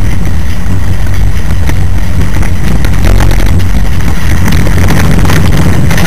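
A moving vehicle's engine and road noise: a loud, steady low rumble.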